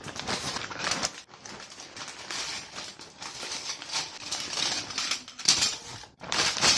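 Small plastic Lego pieces rattling and clicking against each other as a pile of them is handled, a dense run of light clicks.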